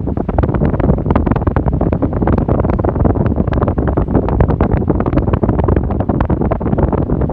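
Arno Ultra Silence Force electric fan running, its airflow hitting the microphone as loud, steady wind noise with rapid buffeting.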